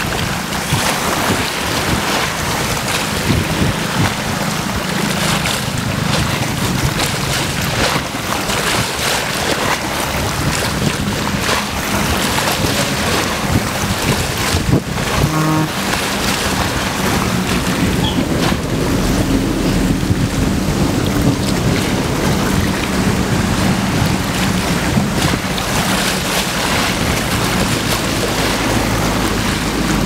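Wind-driven waves splashing and lapping in a steady wash, with gusting wind buffeting the microphone.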